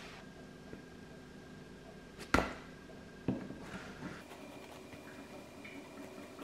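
Two knocks on a wooden cutting board: a sharp one, the loudest sound, a little over two seconds in, and a fainter one about a second later, as a spatula sets a slice of fried toast down on the board.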